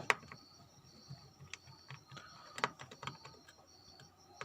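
A few light, scattered clicks and taps of a small screwdriver working on the screws of an Asus Zenfone Max Pro M1 phone, as the screws are being taken out to open the phone.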